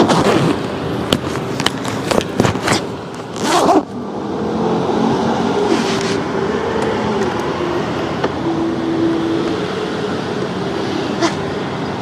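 Street traffic noise with a motor vehicle engine running nearby as a steady hum. There are several sharp knocks and rustles in the first few seconds.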